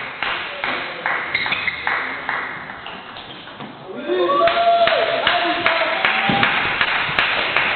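Table tennis rally: the ball clicking off bats and table about twice a second. From about four seconds in, louder voices and noise fill the hall.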